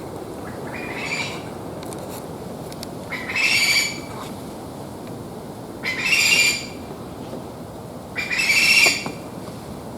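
Okinawa rail calling close by: a faint call about a second in, then three louder calls under a second long, about two and a half seconds apart. A steady low background rumble runs underneath.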